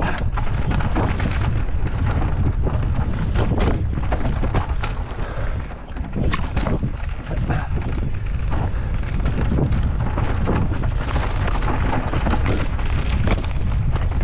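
Wind buffeting the microphone of a camera on an e-mountain bike descending a dirt forest singletrack, with steady tyre and trail rumble. Frequent irregular knocks and rattles come from the bike hitting roots and bumps.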